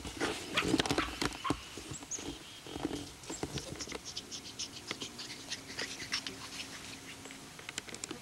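Pug puppy and Labrador retriever at play: a burst of dog sounds in the first second and a half and a shorter one about three seconds in, then a run of quick, light pattering and rustling.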